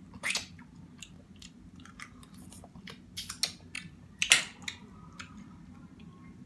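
Close-miked mouth sounds of a person eating seafood boil: chewing and smacking, with irregular sharp wet clicks. A louder crack comes a little after four seconds in.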